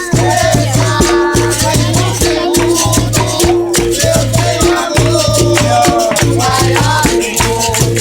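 Capoeira roda music: a berimbau playing its repeating low notes with the shake of its caxixi rattle, steady hand-clapping, and voices singing.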